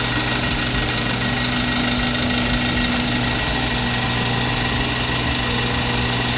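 Mini excavator's engine running at a steady, unchanging pitch.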